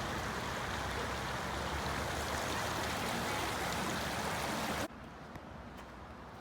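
Shallow stream water running steadily. About five seconds in it cuts off abruptly to a much fainter background.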